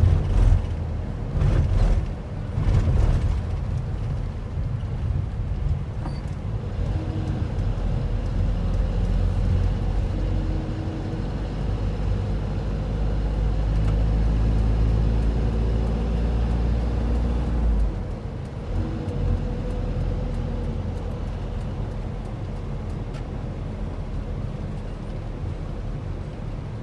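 School bus engine and road noise heard from inside the cab, a steady low rumble. There are a few sharp knocks and rattles in the first three seconds. The engine pulls harder through the middle, then eases off suddenly about 18 seconds in.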